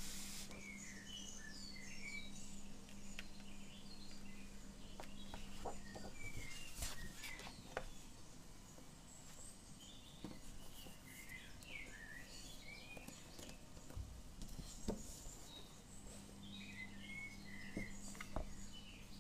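Small birds chirping in scattered bursts of short twittering calls, with a few soft taps and paper rustles from a hardcover sketchbook being handled and closed. A faint low hum runs under the first six seconds and returns near the end.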